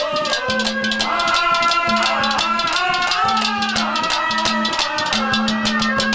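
Instrumental interlude of a Haryanvi ragni: a gliding, wavering lead melody over a fast, busy drum-and-rattle rhythm, with a steady low note that drops in and out.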